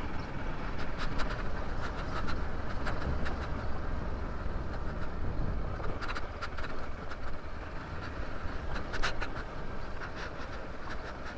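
Hero Xpulse single-cylinder motorcycle riding over a rough trail: a steady low rumble with scattered knocks and rattles, the loudest about a second in and about nine seconds in.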